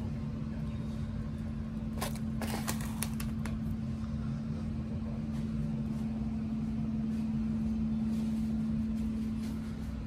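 Steady machine hum holding one pitch, with a low rumble beneath it and a few short clicks and clatters about two to three and a half seconds in.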